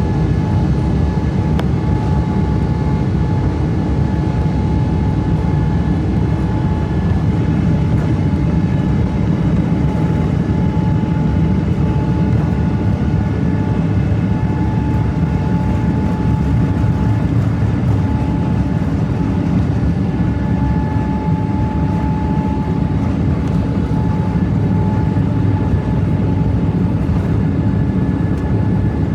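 Boeing 777-200 jet engines and cabin noise heard from inside the passenger cabin: a steady low rumble with a steady whine above it.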